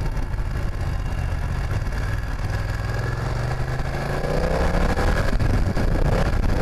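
900 cc BMW motorcycle engine heard from the rider's seat, running steadily at part throttle, then accelerating from about four seconds in with its note rising and getting louder.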